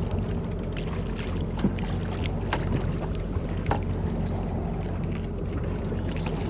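Sea-Doo Switch pontoon boat's engine running with a steady hum, with a few light clicks and knocks over it.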